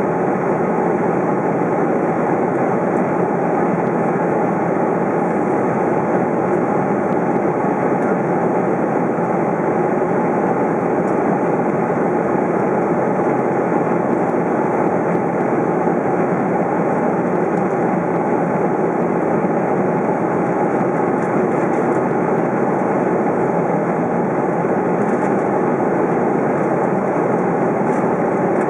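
Airbus A330 cabin noise in flight, heard inside the cabin by a window over the wing: an even, unbroken rush of airflow and engine noise.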